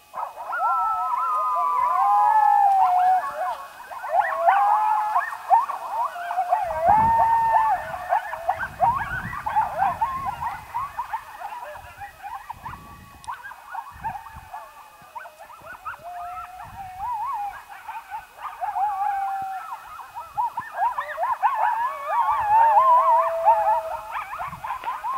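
A pack of coyotes howling and yipping together, many wavering calls overlapping and gliding up and down.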